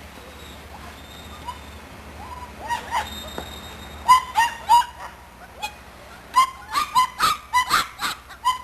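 Puppies yipping: a run of short, high yips, faint and sparse at first, then louder and coming in quick succession from about four seconds in.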